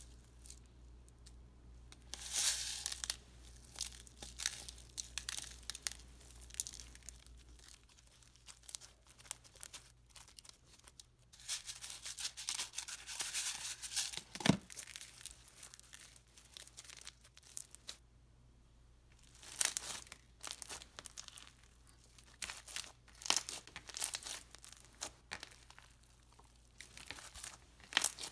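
Pink glitter slime being kneaded and squeezed with clear plastic sugar beads worked into it: irregular bursts of crunching and crackling as the beads are pressed through the slime, with quieter pauses between handfuls.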